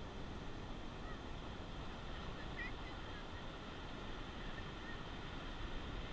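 Steady wash of Atlantic Ocean surf, with a few short, faint bird calls over it, the clearest about two and a half seconds in.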